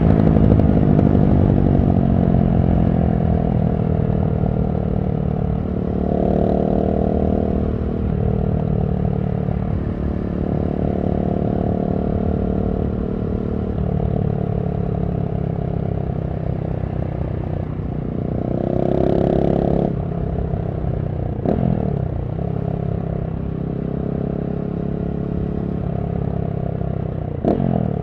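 KTM SMC-R 690's single-cylinder engine running through a LeoVince One Evo slip-on exhaust with dB-killer: the revs drop off at first, then it runs at lower revs with a couple of brief throttle openings, and two short sharp cracks come later on.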